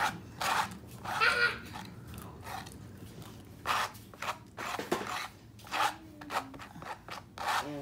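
Metal palette knife scraping acrylic paint in a string of short, irregular scrapes.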